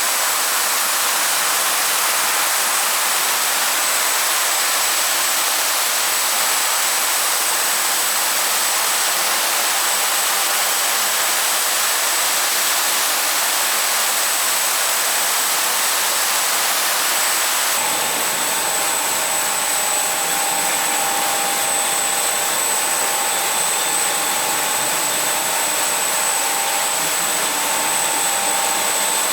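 Automatic carpet washing machine running steadily: a loud, even rushing noise with a high steady whine. About 18 seconds in the sound shifts and a lower steady hum joins in.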